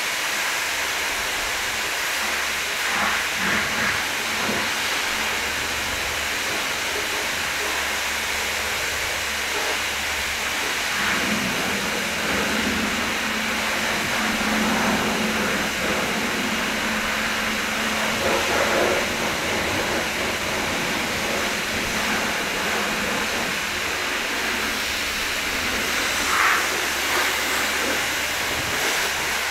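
Pressure washer spraying water onto a car: a steady, unbroken hiss.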